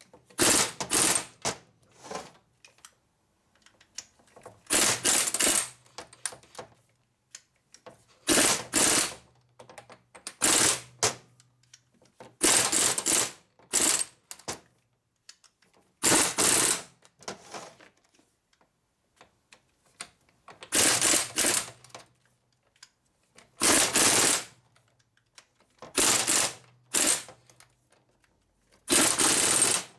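A power tool run in short bursts, about a dozen, each under a second, with pauses of one to four seconds between them.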